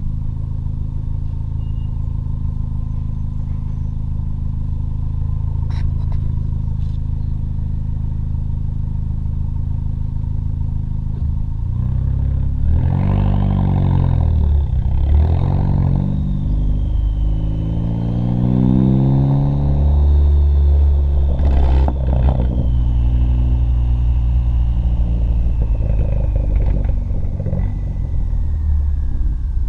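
2014 Ford Focus ST's turbocharged 2.0-litre four-cylinder, exhaust run without muffler or resonator, running at a steady note, then revving up and down several times from about twelve seconds in, with a high whine over the revs and one sharp burst about twenty-one seconds in.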